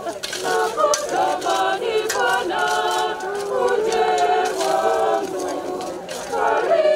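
A group of voices singing unaccompanied, choir-style, with a short break just after the start and another shortly before the end.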